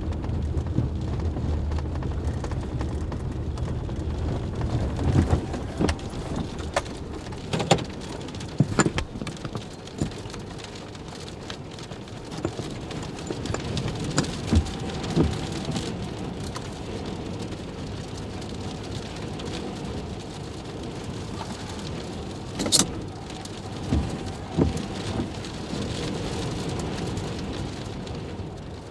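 Severe thunderstorm wind and rain: a steady rush with heavy low buffeting in the first few seconds that then eases, and scattered sharp knocks and taps throughout, the strongest a little after twenty seconds.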